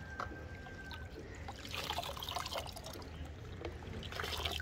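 Water poured from a plastic jug over a puppy in a plastic tub of soapy water, trickling and splashing, louder about two seconds in and again near the end.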